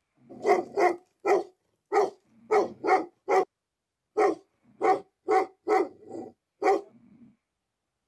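Bhote Kukur (Himalayan livestock guardian dog) barking, a dozen or so loud barks at about two a second with a short break about halfway through.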